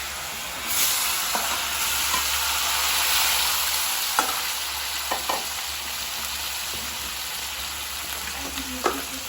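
Spices sizzling in hot mustard oil in a karahi; the sizzle swells about a second in. A few short knocks of the stirring utensil against the pan come through it.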